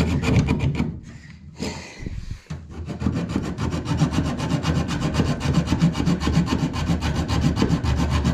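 Hacksaw cutting through 10mm microbore heating pipe. A few strokes, then a short lull about a second in, then quick, even back-and-forth sawing from about three seconds on.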